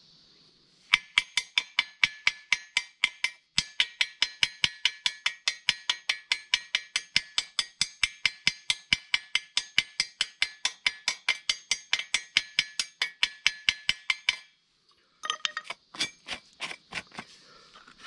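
Chipping hammer striking a fresh arc-weld bead on a steel square tube to knock off the slag: a steady run of sharp metallic taps, about five a second, with the tube ringing. After a pause it ends with a short, more irregular flurry of taps.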